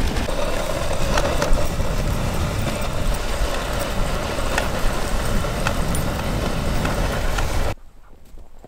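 Kick-sled running over a packed-snow road behind four huskies: a steady rushing scrape of the runners with wind rumbling on the microphone and scattered light clicks. It cuts off suddenly near the end.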